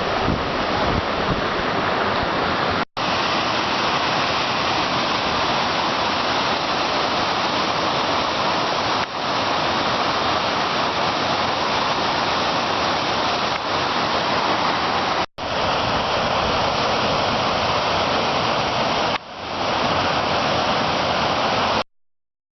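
Strong wind buffeting the camera's microphone: a loud, steady rushing noise that cuts out abruptly twice and stops suddenly near the end.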